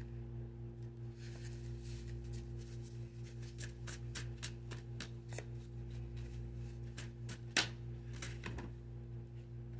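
Tarot cards being shuffled by hand: a run of crisp card snaps and flicks starting about a second in, with one louder snap near the end.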